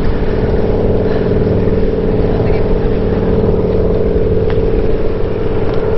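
A steady motor or engine drone holding one even pitch, with a few faint light ticks over it.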